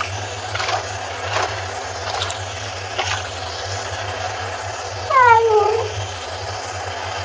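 A cat meows once, a single falling call about five seconds in, over the steady hiss of a tap running into the sink.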